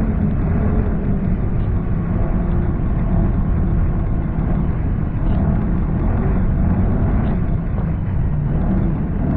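Snowmobile engine running steadily while under way, a continuous drone over a heavy low rumble with a slight wavering in pitch.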